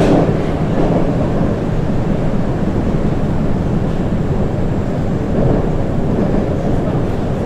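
Inside a Moscow-2020 (81-775/776/777) metro car running through the tunnel: a steady low rumble of wheels on rails, with a sharp knock right at the start.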